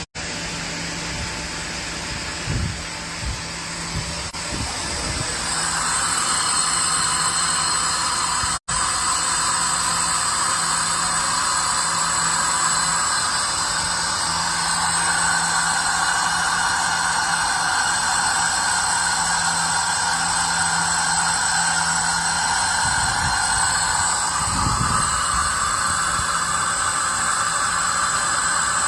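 Makino BN2-85-A6 CNC milling machine running: a steady hiss over a low hum, growing louder about five seconds in, with a momentary break about nine seconds in.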